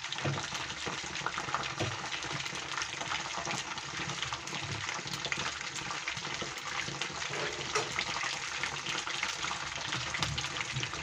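Batter-coated straw mushrooms frying in shallow oil over a low flame: a steady sizzle peppered with fine crackles.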